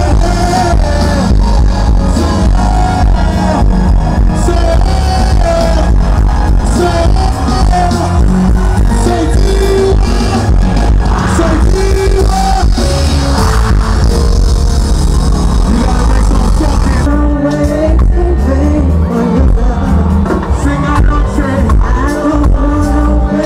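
Live band music with singing: vocalists on microphones over bass guitar, drums and keyboard, with a strong steady bass. The high end thins out about two-thirds of the way through.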